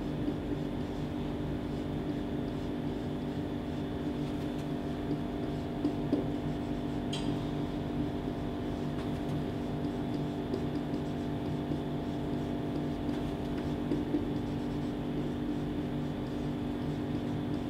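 Steady low mechanical hum in the room, with faint taps and scratches of a whiteboard marker writing and one short squeak of the marker about seven seconds in.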